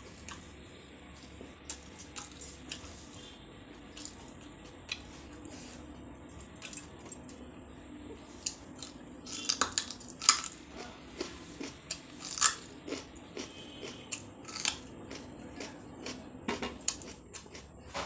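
A person eating: chewing with sharp crunches and bites. The crunches come thicker and louder in the second half.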